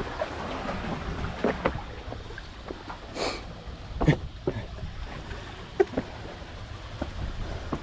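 Seawater washing around concrete tetrapods, with wind on the microphone and scattered knocks and scrapes as someone clambers across the blocks. There is a short rush of noise about three seconds in.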